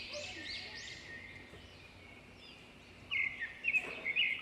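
Small birds chirping: a run of quick rising-and-falling calls in the first second, then a burst of louder, sharper chirps about three seconds in, over a faint outdoor background hiss.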